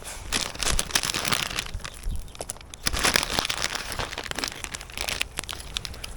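Plastic instant-ramen wrapper crinkling and rustling in the hands, with irregular sharp crackles as the noodles are taken out to go into the boiling pot.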